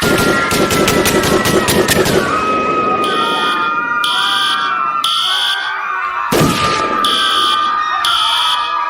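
A rapid string of gunshots for about two seconds over screaming voices. Then an alarm starts beeping on and off about once a second, with the screaming going on and a single shot about six seconds in.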